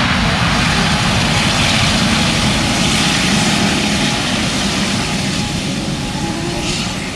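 Boeing 787 Dreamliner's two turbofan engines in reverse thrust on the landing rollout, a loud steady jet noise that eases off over the last couple of seconds as the aircraft slows.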